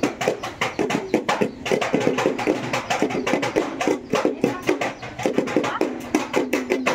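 Madal hand drum beaten in a fast, dense rhythm of sharp strokes, about five or six a second, each with a short pitched ring.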